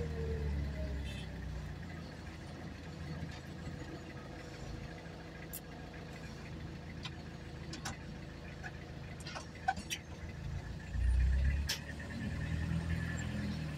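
Car engine and tyre rumble heard from inside the cabin as the car rolls slowly, low and steady, with a few faint sharp clicks and a brief louder rumble about eleven seconds in.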